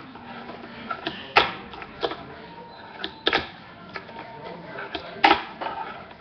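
Tech Deck fingerboard clacking against a hard tabletop as it is popped and landed in tricks: several sharp clacks, the loudest about a second and a half, three and a quarter and five and a quarter seconds in.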